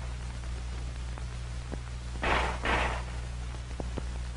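Two pistol shots about half a second apart, a two-shot burst, over the steady low hum of an old film soundtrack, with a few faint clicks.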